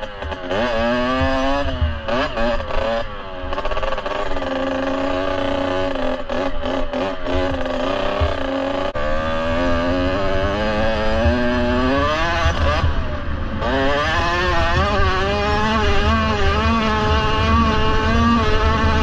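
Kawasaki KX65 two-stroke single-cylinder dirt bike engine revving up and down under throttle while riding. The revs climb sharply about twelve seconds in, drop off briefly, then hold high to the end.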